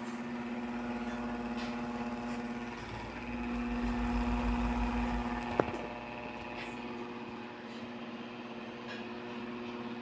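Two Malory electric fans, a Zéfiro and a Boreal, running together: a steady motor hum with the whoosh of the blades, a low rumble that swells for a couple of seconds before a single sharp click about halfway through.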